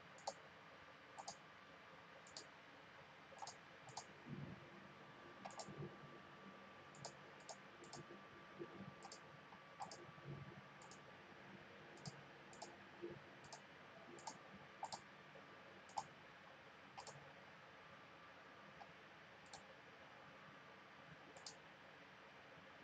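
Computer mouse button clicking: faint single clicks at an uneven pace, about one a second.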